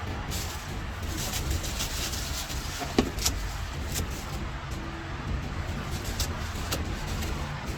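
Street traffic ambience: a steady low rumble of passing vehicles, with a sharp click about three seconds in and a few fainter clicks.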